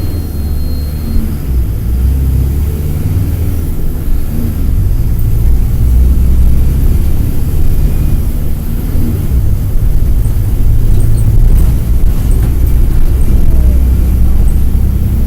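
Mercedes-Benz OF-1722M bus's OM-924 LA four-cylinder turbodiesel engine running under load, a deep drone that grows louder over the first several seconds, heard from inside the bus.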